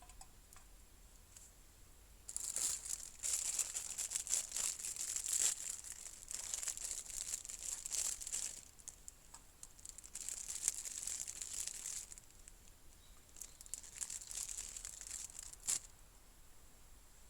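Crinkling and rustling of plastic wrapping being handled, in three stretches, with a sharp click near the end.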